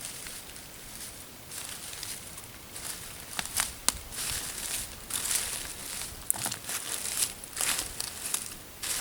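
Close, irregular rustling and crinkling with a few sharp clicks and snaps, like handling noise at the microphone.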